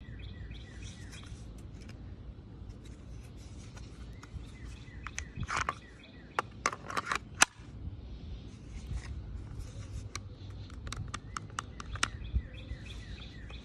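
Pistol being pulled from and pushed into a hard polymer paddle holster with a retention button: plastic scraping and sharp clicks, the loudest a little past midway, then another quick run of clicks later. Birds chirp in the background.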